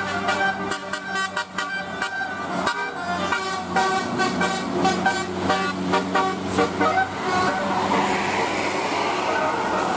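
Bus 'telolet' musical horn playing a rapid string of short notes at changing pitches, over a steady low engine hum. About seven and a half seconds in, the tune stops and a steady rushing noise takes over.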